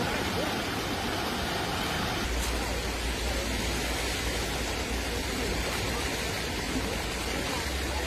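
Floodwater rushing steadily through the breach of a burst reservoir embankment. A deeper low rumble joins about two seconds in.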